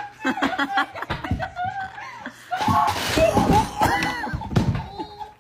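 A wooden dining chair breaking and collapsing under a heavy man: knocks and a clatter from about halfway through, amid loud laughter and shrieks.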